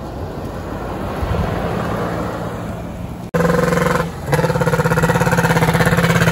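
A motor vehicle running on the road. After a sudden break about three seconds in, a chhakda, a motorcycle-fronted passenger three-wheeler, approaches with its engine chugging in a steady rapid beat.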